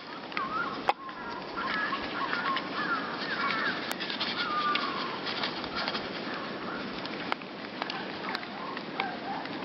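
Great tits and blue tits calling in short, quick chirps, with a few sharp clicks, over a steady background hiss.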